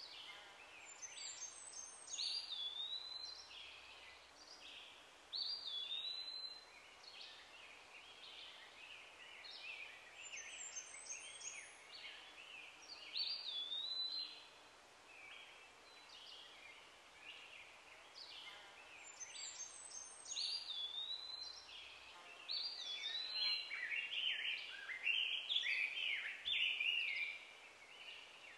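Wild birds calling and chirping, short high whistled notes and hooked phrases overlapping, with the same phrases coming back every nine seconds or so over a faint outdoor hiss. The calls grow denser and louder near the end.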